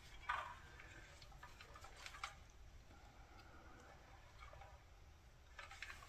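Near silence, broken by a few faint clicks and handling noises from multimeter probe leads and wire connectors being handled: one shortly after the start and another about two seconds in.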